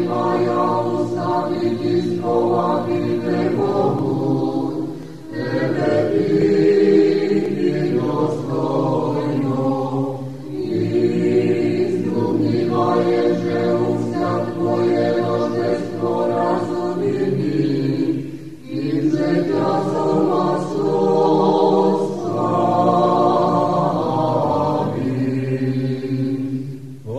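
Unaccompanied choir singing Church Slavonic liturgical chant of a Byzantine-rite Divine Liturgy, in long sustained phrases with brief pauses between them.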